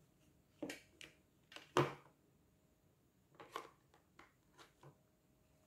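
Plastic parts of an LG mask and its filters being handled and pressed together: a scatter of short clicks and rustles, the loudest about two seconds in.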